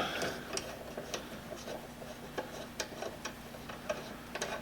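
Faint, irregular light metallic clicks and rubbing from hand tools working the nut of a 2003 Toyota Matrix's front sway bar link.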